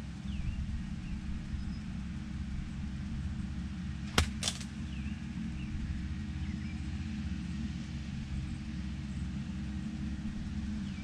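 Golf iron striking the ball on a full swing: a sharp double click about four seconds in, over a steady low hum.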